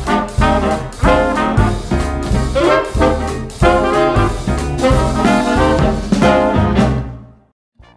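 Upbeat, rhythmic background music that fades out near the end.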